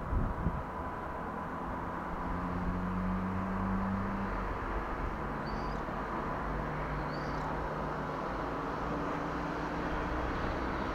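Distant city road traffic: a steady hum and wash of cars passing on a road below. There are a few knocks right at the start, and two short high chirps come about five and seven seconds in.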